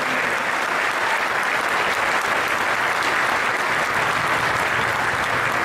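Audience applauding steadily, a dense clapping of many hands in a hall.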